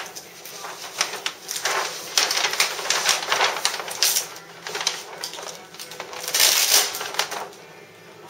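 Peel-and-stick faux stainless vinyl film and its paper backing rustling and crinkling as the film is peeled down and pressed by hand onto a refrigerator door, in uneven bursts that are busiest through the middle.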